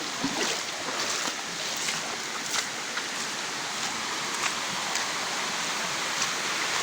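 Steady rush of a mountain stream flowing over rocks, with a few small clicks and splashes.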